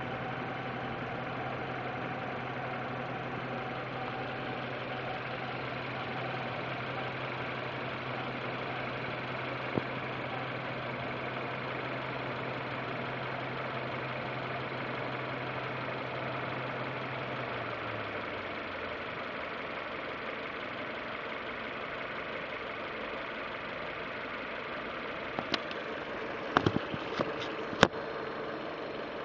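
Citroën C4 engine idling with a steady hum and an odd noise, which the owner suspects comes from the alternator or timing belt area. The low hum fades out about two-thirds of the way through, and a few sharp clicks come near the end.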